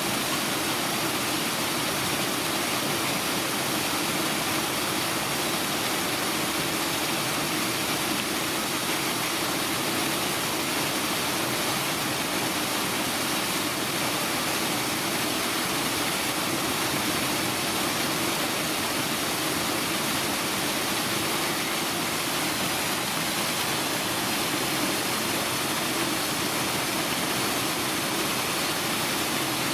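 A steady, unchanging rushing noise with a faint low hum in it.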